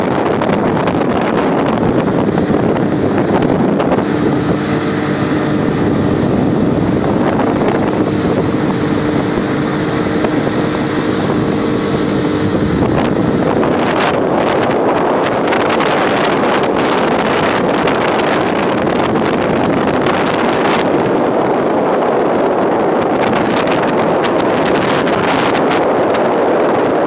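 Small boat's outboard motor running steadily at speed, with wind buffeting the microphone. A steady engine drone shows through the noise in the first half, and the wind buffeting grows heavier from about halfway.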